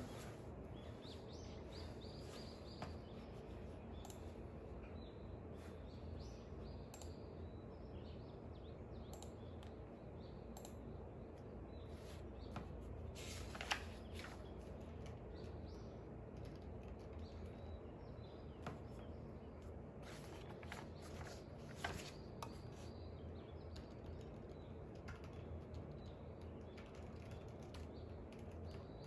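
Quiet study ambience: scattered light clicks and taps from work at a desk over a steady low background, with faint bird chirps outside throughout.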